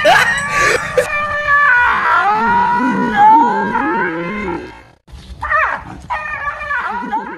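A dog barking and crying out frantically at a toy tiger: a quick run of sharp barks at first, then long wavering high cries, and after a short break near five seconds more yelping barks.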